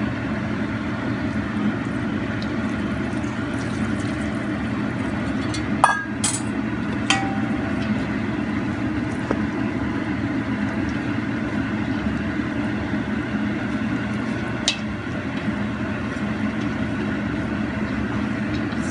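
Steady low background rumble with a few sharp clinks of a spoon against a metal bowl: a cluster about six to seven seconds in and one more near fifteen seconds, as sauce is stirred through hot steamed glutinous rice.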